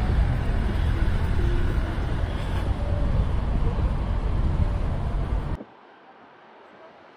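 Road traffic passing, cars and vans, as a steady low-heavy noise; it cuts off abruptly about five and a half seconds in, leaving only a faint background.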